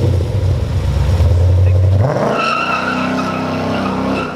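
Automatic car's engine revving hard during a burnout, with tyres squealing. About two seconds in the engine note jumps higher and holds there, which onlookers take for the transmission giving out.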